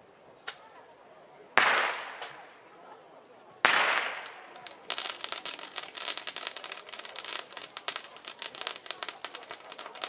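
Firecrackers going off: two loud single bangs about two seconds apart, each dying away slowly, then from about five seconds in the rapid crackle of a string of firecrackers.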